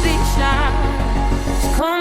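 Pop song with a sung melody over a heavy bass line; the bass drops out near the end.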